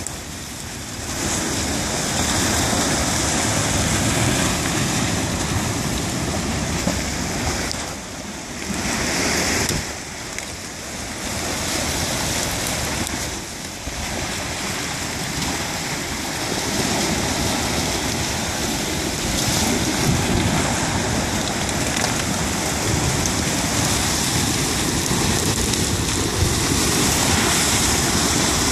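Yellowstone River ice going out in the spring breakup: broken ice and slush grinding and hissing past the bank, a steady rushing noise with a few brief lulls.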